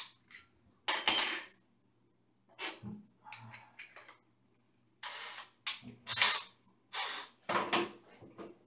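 Metal tools and drill bits being handled: a sharp, ringing metal clink about a second in, then scattered clicks and clatter.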